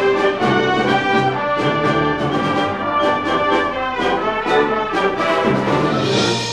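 A full concert band of woodwinds, brass and percussion plays a loud passage of held chords, with the brass prominent. A swell of high shimmer rises near the end.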